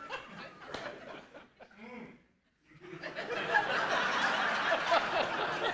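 A voice speaking briefly, then after a short pause an audience breaks into laughter about three seconds in, many voices laughing and chattering together.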